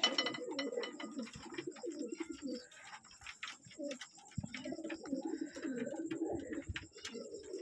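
Domestic pigeons cooing in a loft, several low, throaty, warbling coos overlapping and repeating, with scattered light clicks and taps among them.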